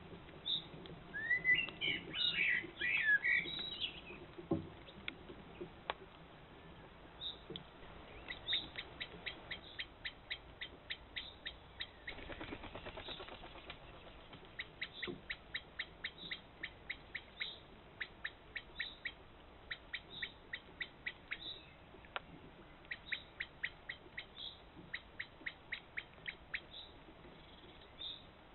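Songbirds calling. A quick, jumbled burst of warbling song comes near the start, then long runs of short, sharp repeated notes, several a second. A brief burst of noise comes about twelve seconds in.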